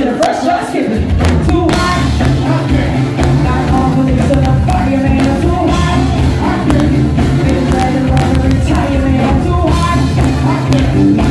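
Live band playing a song with a singer, drum kit, keyboards and electric guitar, loud and without a break.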